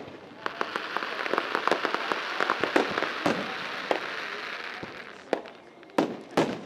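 Aerial fireworks display: a long, dense crackling shower of small pops runs for about four seconds as the shells burst, then two sharp bangs from new bursts near the end.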